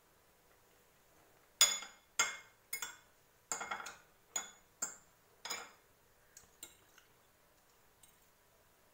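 A metal fork clinking and scraping on a cut-glass plate while rice is scooped up. There are about ten sharp clinks between roughly one and a half and six seconds in, the first the loudest, then two faint taps.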